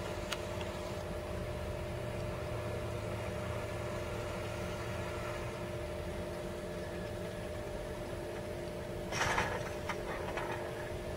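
Heavy truck engines running, a steady low drone with an even hum. A short burst of noise about nine seconds in.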